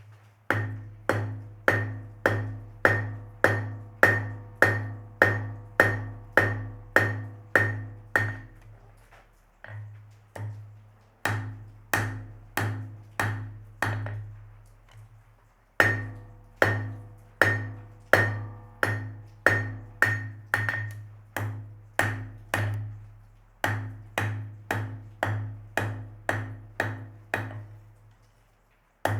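Blacksmith's hammer striking on an anvil while forging, about two ringing blows a second, in four runs broken by short pauses.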